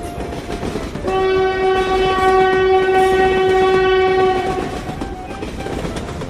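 Train horn blowing one long, steady blast of about three and a half seconds, starting about a second in, over the continuous running noise of a passing train.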